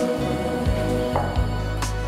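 Instrumental music with held notes and a few new notes struck in turn.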